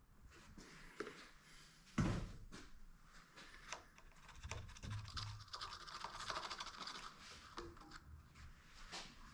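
Hands handling things at a small engine while topping up its oil: scraping, scratching and light clicks, with one sharp knock about two seconds in.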